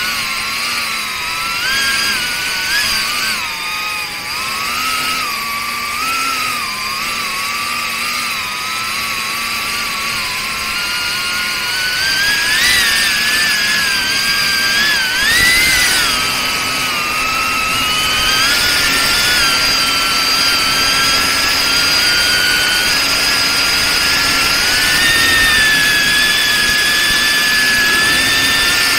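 Pavo30 ducted FPV quadcopter's 3800 KV brushless motors and propellers whining, the pitch wavering up and down with the throttle. There are a few sharp rises in pitch around the middle, then a higher, steadier whine as it climbs.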